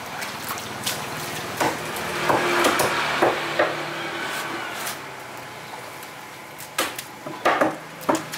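A large knife knocking and scraping on a wooden chopping block while mahi-mahi is cut and handled: irregular sharp knocks, with a few louder thuds near the end.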